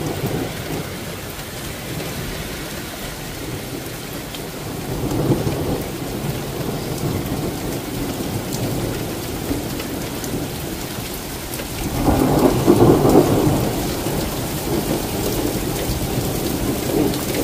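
Heavy thunderstorm rain falling steadily, under rolling thunder that swells about five seconds in and rumbles loudest from about twelve seconds in.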